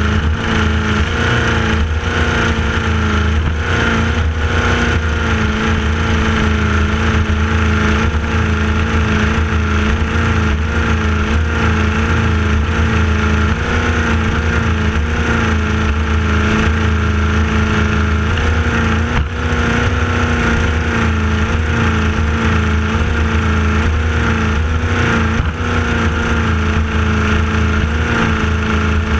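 Powerboat engine running hard and steadily at speed, its pitch wavering slightly, over a steady rush of wind and water.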